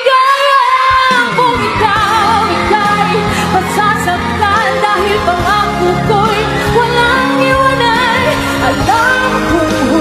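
A female pop singer sings a Tagalog ballad live with vibrato over band accompaniment; the bass comes in about a second in.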